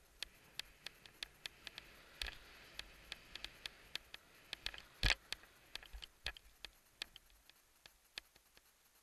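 Skis sliding softly through snow, with scattered sharp clicks and knocks from the skier's gear. The loudest knock comes a little after halfway.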